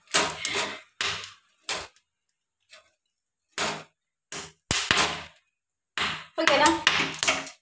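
Corn cob roasting over a gas burner flame, its kernels crackling and popping in short irregular bursts. A voice murmurs briefly near the end.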